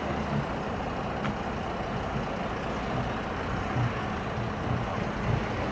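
Steady low rumble of motor vehicle engines, with no distinct events standing out.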